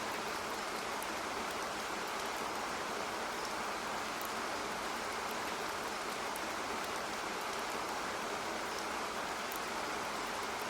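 Steady rain falling, an even, unchanging hiss with scattered faint high ticks.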